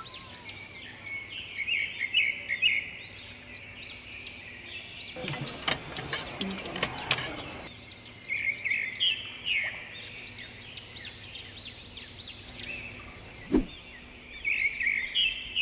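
Many small birds chirping and twittering in quick short calls, with a stretch of rustling noise around the middle and a single sharp click near the end.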